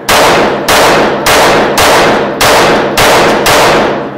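A rapid string of handgun shots, seven in about four seconds at roughly 0.6 s spacing, each loud report trailing off in a long echo.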